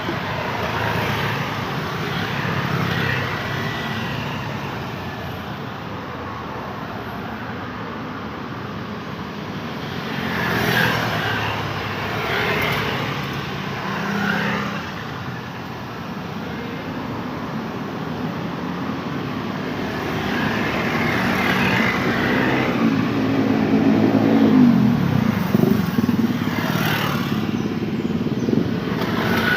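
Busy road traffic, cars and motorcycles passing in a continuous stream, single vehicles swelling louder as they go by. Near the end one passing engine's note rises and then falls in pitch.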